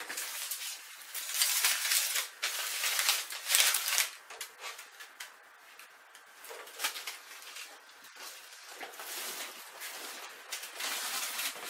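Leftover paper sheets from a cut-out paper model being gathered and crumpled by hand: irregular crackling rustles, loudest in the first few seconds, quieter in the middle, and rising again near the end.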